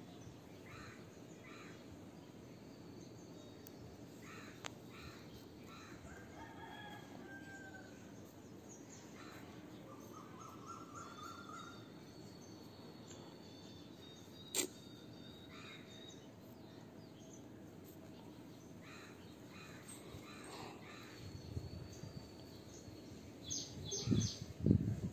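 Birds chirping and calling in the background over a steady hiss, with one sharp click a little past the middle and louder, irregular low rustling near the end.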